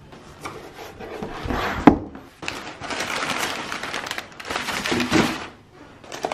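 Crumpled brown kraft packing paper rustling and crinkling as it is handled inside a cardboard box, in several bursts. There is one sharp knock about two seconds in.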